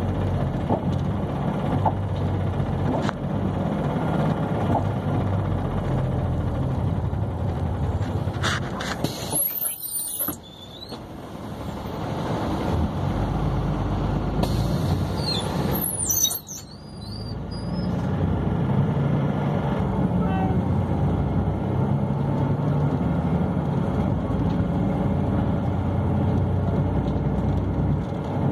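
Engine and road noise heard from inside a moving vehicle in city traffic, a steady low hum. High squeals come twice, about nine seconds in and again around fifteen to seventeen seconds in.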